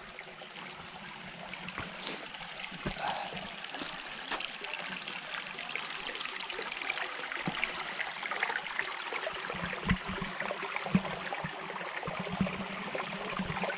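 Shallow creek water trickling and gurgling over rocks, growing slightly louder, with a few dull thumps near the end.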